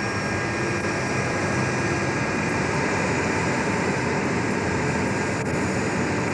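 Boeing 727 cockpit during the takeoff roll: the jet engines running up at power, a steady rush with thin high whines. On this run the number 2 engine fails to spool up because of a broken blade.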